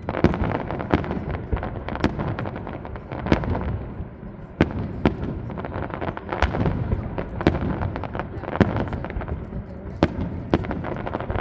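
Fireworks display: a rapid, unbroken run of aerial shell bangs and crackles, several a second, over a continuous low rumble.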